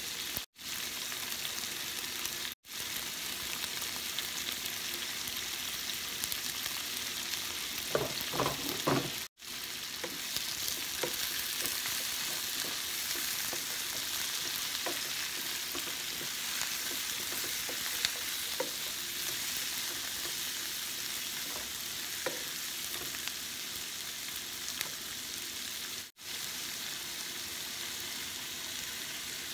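Diced onion, carrot, tomato and green pepper sizzling in a hot nonstick pan, with a steady frying hiss. A wooden spatula scrapes and knocks against the pan as the vegetables are stirred, loudest about eight seconds in. The sound drops out for a split second four times.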